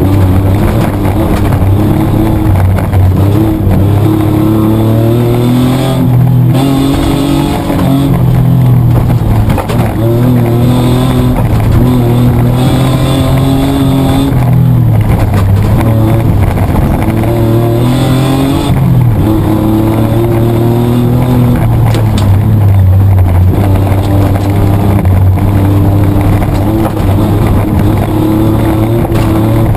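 Petrol engine of a Mitsubishi Triton 4WD heard from inside the cabin, driven hard on an off-road rally course. It revs up through the gears and drops back on each change or lift-off, over and over.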